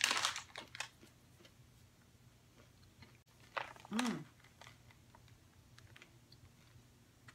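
Quiet chewing of a candy-coated M&M, with a few crisp noises in the first second and small faint clicks after them. A short hummed 'hmm' comes about four seconds in.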